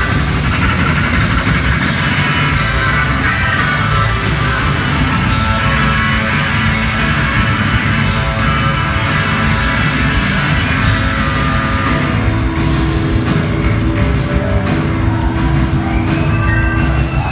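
Rock band playing live: electric guitar, bass guitar and drum kit at full volume.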